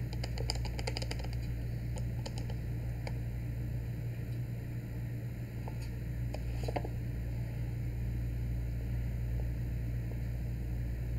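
Small clicks and scrapes from a camera lens being turned and handled in gloved hands, in a quick cluster in the first second or so and again about six seconds in, over a steady low hum.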